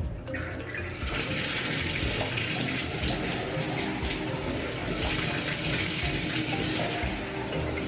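Bathtub faucet running steadily from about a second in, its water caught in a plastic cup and poured over a French bulldog's back. Quiet background music underneath.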